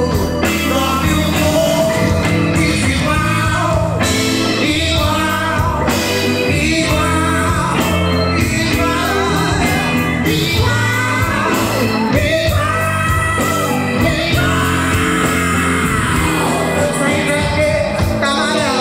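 Live MPB band playing a song, with a sung vocal line over keyboard, guitar, bass, drums and percussion.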